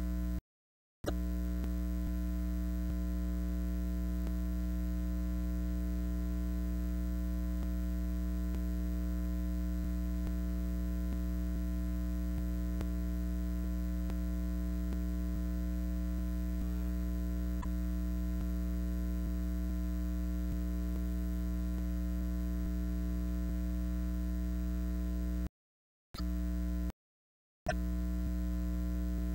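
Steady electrical mains hum with a stack of overtones and no other sound. It cuts out to dead silence briefly just after the start and twice near the end.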